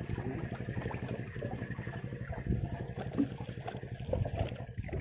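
Choppy water lapping and slapping against the hull of a small wooden boat, over a steady low rumble, with a few faint knocks.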